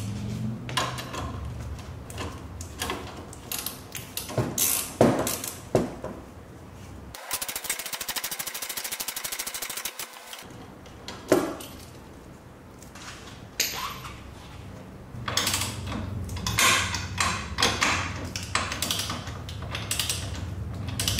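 Hand tools working on a car's front suspension while a new stabilizer link is fitted to the strut: scattered metallic clinks and knocks, with a fast run of ratchet clicks lasting about three seconds near the middle.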